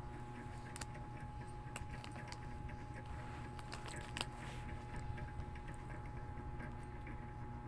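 A cat chewing a Fita cracker: irregular small crunching clicks, one sharper crunch about four seconds in, over a faint steady hum.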